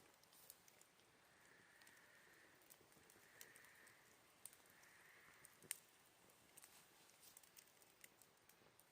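Campfire crackling faintly with scattered small pops, one sharper pop a little past halfway. Three times in the first half, an autumn insect trills for about a second each.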